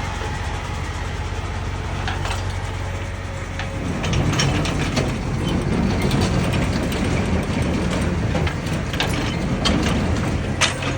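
Mini excavator's diesel engine running and working harder from about four seconds in, with metallic clanks and rattles of the machine moving. The sharpest knock comes near the end.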